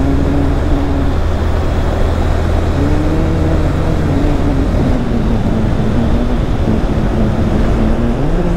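Motorcycle engine running under way, heard from the rider's bike, its note rising about three seconds in, easing off through the middle and picking up again near the end, over a steady rush of riding noise.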